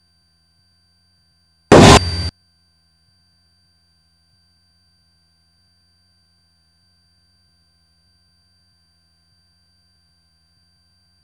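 Cockpit audio feed from a Cessna 172S's intercom and radio: a faint steady high electrical whine, broken about two seconds in by a loud half-second burst of static that drops partway through and cuts off suddenly.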